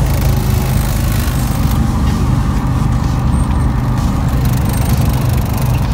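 Light aircraft's piston engine and propeller running steadily, a low, even drone heard from inside the cockpit.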